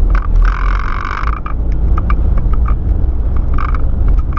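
Steady low rumble of a car's engine and tyres heard from inside the cabin while driving. About half a second in there is a higher hiss lasting roughly a second, followed by a few short, irregular clicks.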